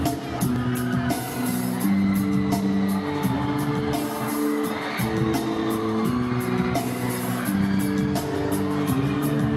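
Live pop-rock band music heard from the audience: held chords changing every second or so over a steady beat with regular cymbal ticks.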